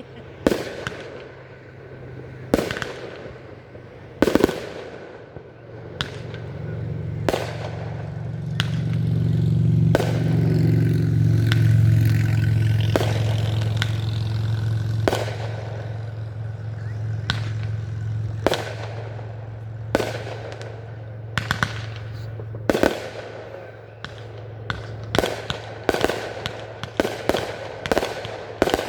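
Fireworks show: aerial shells bursting in a series of sharp bangs a second or two apart, each with an echoing tail. A low steady hum swells up in the middle and fades, and the bangs come faster and closer together near the end.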